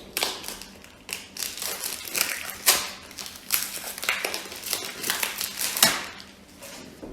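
Plastic wrapping crinkling and crumpling in irregular bursts as it is pulled off reverse osmosis filter cartridges, dying away near the end.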